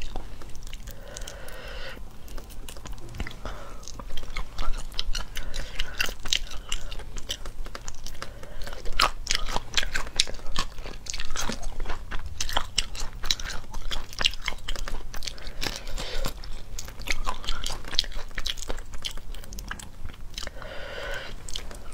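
Close-miked crackling and crunching of shrimp shells as whole shrimp are peeled by hand and chewed shell-on, with rapid sharp crackles coming thickest through the middle.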